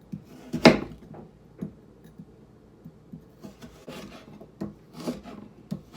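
A kitchen knife sawing and chopping through hard squash or potato on a wooden cutting board, rubbing and scraping between sharp knocks of the blade on the board. The knife is dull, which the cook says needs sharpening.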